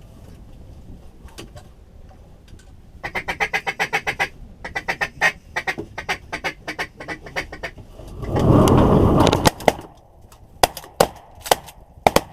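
Rapid runs of quacks on a duck call, followed near the end by several sharp shotgun blasts about half a second apart.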